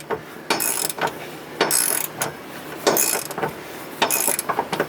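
Ratchet wrench clicking in short runs of strokes, about one run every second, while tightening nuts on the studs that hold a strut-tower power brace to the subframe.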